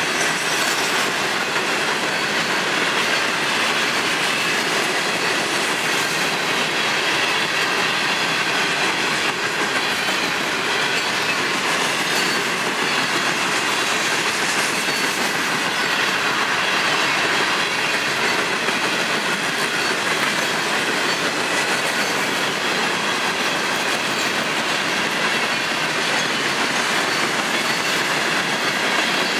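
Florida East Coast Railway freight train of loaded hopper and gondola cars rolling steadily past at close range: a continuous rumble and clatter of steel wheels on the rails, with a faint high wheel squeal over it.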